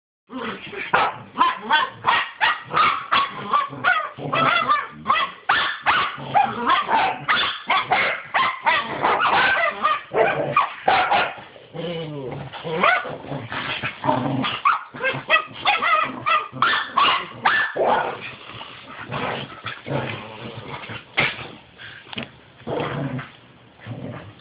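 Fluffy corgis and a schipperke barking and yipping as they play-fight. The barks come rapidly and nearly without a break for the first half, then grow sparser and more spread out.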